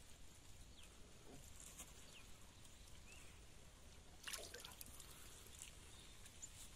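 Near silence, broken about four seconds in by a brief faint splash as the hooked fish is pulled from the water by the pole.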